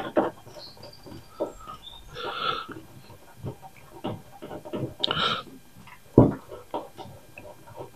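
Scattered light clicks and knocks of a wrench and bolts on metal while the clamp bolts holding a 1947 Ford's grille to its fenders are tightened, with a firmer knock about six seconds in. Two short breathy noises come about two and five seconds in.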